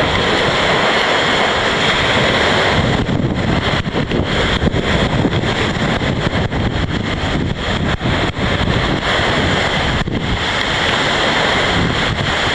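Hurricane-force storm wind buffeting the microphone over waves breaking on a lakeshore. The wind gusts, turning choppy and uneven from about three seconds in.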